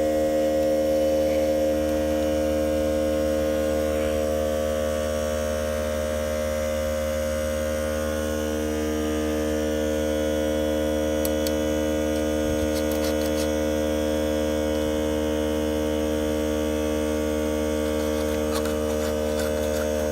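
Steady electrical hum, a stack of even tones that holds unchanged throughout, with a few faint high clicks about halfway through and near the end.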